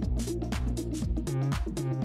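Background music with a steady, quick beat over sustained bass and pitched notes; the deep bass drops out briefly near the end.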